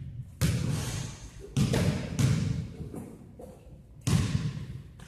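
A basketball bouncing on a gym floor, four irregular thuds, each echoing in the large hall.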